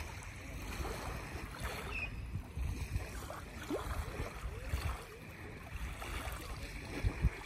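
Wind rumbling and buffeting on the microphone, with small waves lapping at the shore and a low thump near the end.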